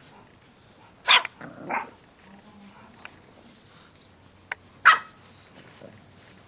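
English Bulldog barking: two short barks, one about a second in with a weaker second sound just after it, and another about five seconds in.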